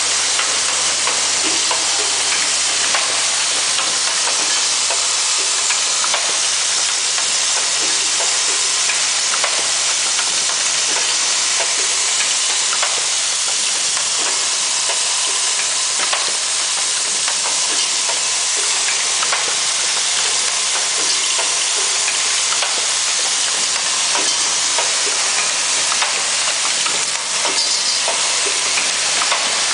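Hose clamp assembly machine running: its vibratory bowl feeders rattle heaps of small metal clamp parts in a steady, dense hiss. Scattered clicks and knocks come from the assembly stations.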